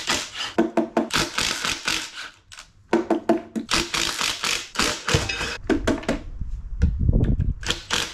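Red cordless impact driver working loose 14 mm bolts on the axle-tube cover of a 1952 VW transaxle, a rapid clatter in bursts with a short pause about two and a half seconds in.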